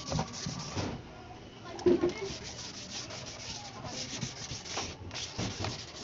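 Wet 400-grit sandpaper rubbed in repeated strokes over a plastic motorcycle fairing, scuffing the old paint before repainting. A brief louder knock comes about two seconds in.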